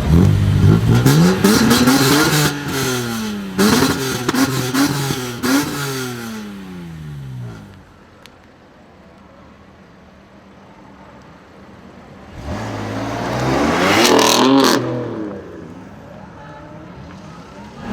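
A BMW car's engine accelerating hard through several gears, its pitch climbing and dropping back with each upshift as it pulls away and fades. After a few quieter seconds, a second car runs up loud and passes, then fades.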